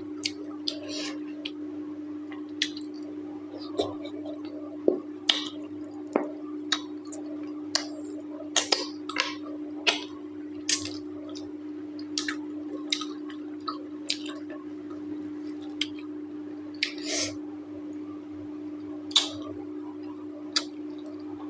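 Close-miked eating of mutton curry and rice: irregular wet mouth smacks and clicks of chewing, one or two a second, over a steady low hum.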